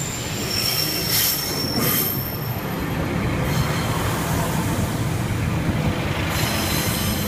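Northern Class 144 Pacer diesel railbus passing close by, with a high thin wheel squeal in the first two seconds over a steady low rumble of engine and wheels.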